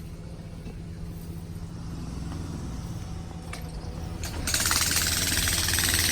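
An engine running steadily with a low hum. About four and a half seconds in, a loud rushing noise cuts in over it for about two seconds.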